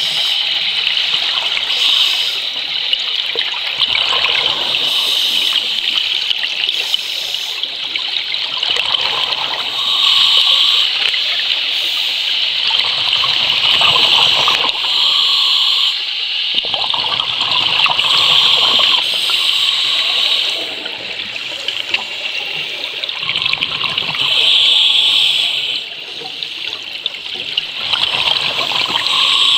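Scuba breathing heard underwater: a steady hiss that swells every few seconds as exhaled air bubbles out of a diver's regulator.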